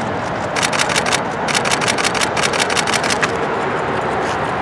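Three rapid bursts of camera shutter clicks, each lasting half a second to a second and firing about ten frames a second, over steady street traffic noise.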